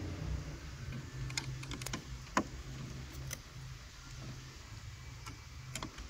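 Scattered small clicks and taps of a screwdriver and fingers on the Toyota Prius's plastic side-mirror housing, about eight in all, the loudest about two and a half seconds in, over a low steady hum.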